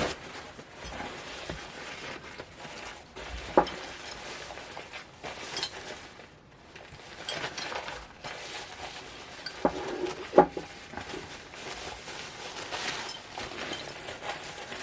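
Ceramic salt and pepper shakers being handled and unwrapped, with scattered light clicks and rattles, sharpest a few times. The rattle comes from the loose movable ceramic tongues inside a pair of 1958 Holt Howard shakers.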